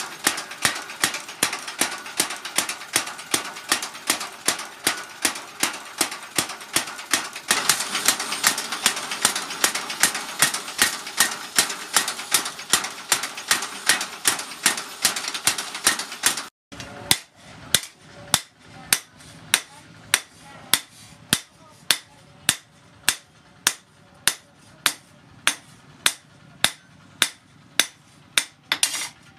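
Hand hammer striking a steel blade cut from a chainsaw bar on a steel post anvil: a steady run of metal blows, about three a second. The blows stop for a moment about halfway through, then go on a little slower over a quieter background.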